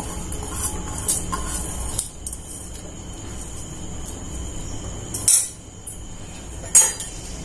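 Stainless-steel bowl clinking lightly against a steel pan as washed rice is tipped into boiled milk, then two sharp metal knocks about five and a half and seven seconds in, over a steady low hum.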